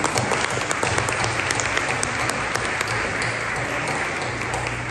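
Congregation applauding, many hands clapping at once, easing off slightly toward the end.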